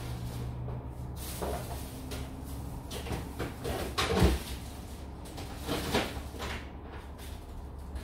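A few household knocks and bumps, like a cupboard or door being handled, over a low steady hum. The loudest bump comes about four seconds in.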